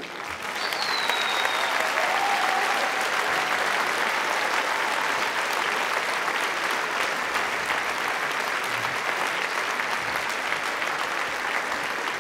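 Large audience applauding steadily, the clapping swelling up just as the show's music ends.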